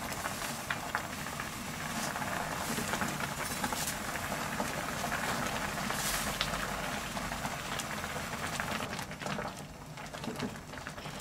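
Kimchi broth bubbling at a boil in a stainless steel wok, with a plastic ladle stirring and scraping against the pan and thin noodles being stirred in. The bubbling and clicking ease off after about nine seconds.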